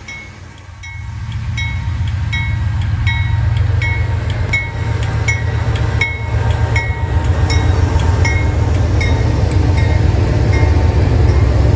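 Diesel freight locomotives approaching and passing close, a deep engine rumble growing louder over the first few seconds and then holding steady. A bell rings steadily throughout, about one strike every three-quarters of a second.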